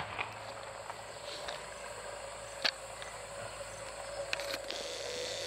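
Quiet open-air ambience in the seconds after an explosion, with the blast's last echo dying away at the very start. A faint steady tone runs underneath, with scattered small clicks and one sharper click about two and a half seconds in.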